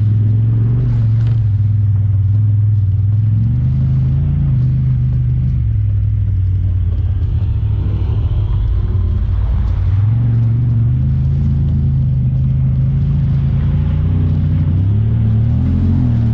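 Honda Talon 1000R side-by-side's parallel-twin engine running under way, the revs dropping and rising again several times as the throttle changes.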